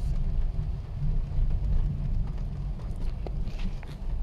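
Car moving slowly, a steady low rumble of engine and road heard from inside the cabin, with a few faint ticks of raindrops on the windshield toward the end.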